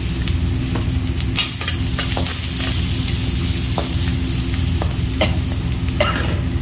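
Sliced onions and chillies frying in oil in a black kadai, sizzling steadily while they are stirred, with repeated short scrapes and taps of the spatula against the pan. A steady low hum runs underneath.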